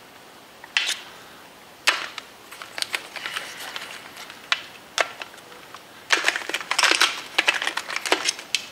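Plastic anatomical skull model being handled with a push dagger: the blade's tip and fingers tap and click against the plastic. It starts with a few single taps, then turns into a quick run of rattling clicks near the end.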